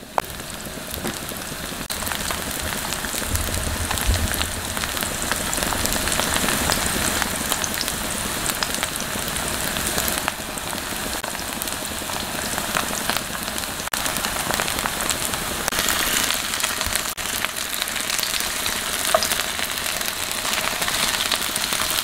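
Chive pancakes sizzling steadily in hot oil in a frying pan, a fine, even crackle of spitting oil.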